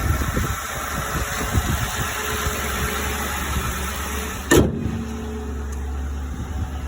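Vehicle engine idling with an exhaust leak, the exhaust puffing irregularly over a steady low rumble and hiss. About four and a half seconds in there is one sharp bump, after which the hiss drops away and only the idle hum remains.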